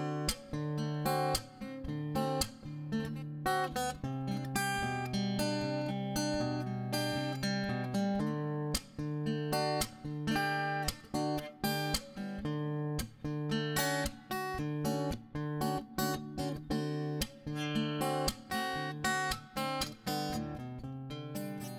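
Background music: strummed acoustic guitar chords in a steady rhythm, starting to fade out near the end.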